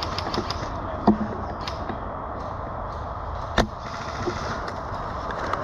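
Airsoft gunfire: a quick run of shots at the start, a few scattered single shots, and one loud sharp shot about three and a half seconds in, over a steady rushing background noise.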